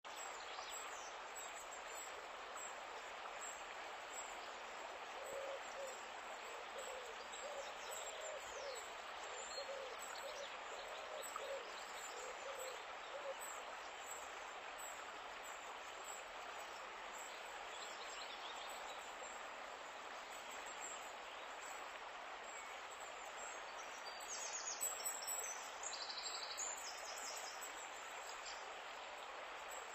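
River water flowing steadily, with birds calling over it: a series of short, low calls between about five and thirteen seconds in, and high chirps throughout that grow louder about twenty-five seconds in.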